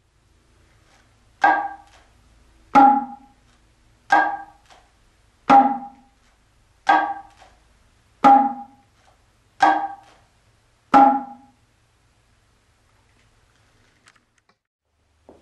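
Kotsuzumi shoulder drum struck eight times, about one stroke every 1.4 s, alternating a sharp 'ta' stroke with a deeper, longer-ringing 'pon' stroke.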